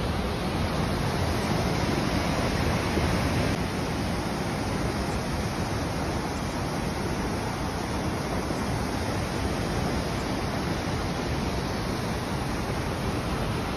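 Steady rushing noise of heavy rain and flowing floodwater, with some wind on the microphone.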